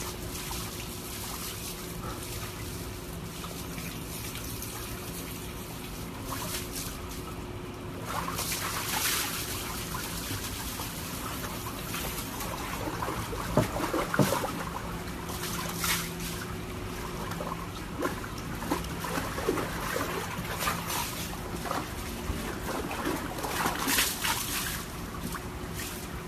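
Water sloshing and splashing in a plastic tub as a husky moves about in it, over a steady low trickle. There are a few louder splashes, the biggest about halfway through.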